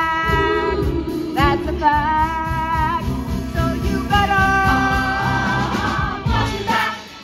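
Live pit orchestra and ensemble chorus performing a stage-musical number: long held sung notes over a steady beat. The music stops near the end.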